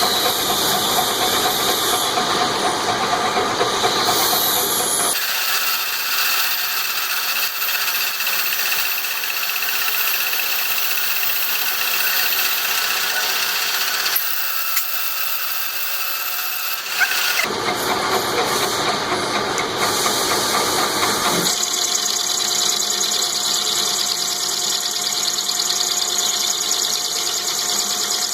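Metalworking machine tools running and cutting metal in several short clips, each with a steady hiss and high squeal, switching abruptly a few times.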